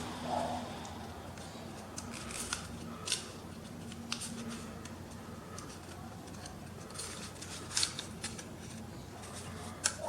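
Hands working on small parts inside an opened laptop, with scattered short clicks and scrapes over a faint steady hum.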